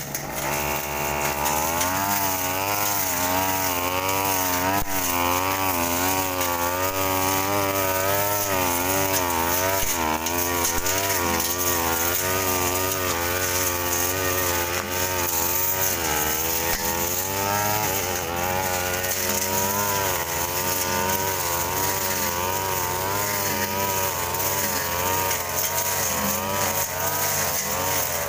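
Backpack brush cutter engine revving up about half a second in, then running at high speed as it cuts grass and weeds, its pitch rising and falling with throttle and load.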